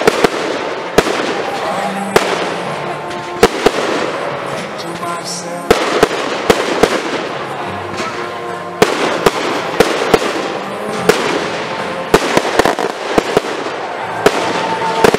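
Aerial firework shells bursting overhead in an irregular series of sharp bangs and crackles, coming thickest in two clusters, about halfway through and near the end.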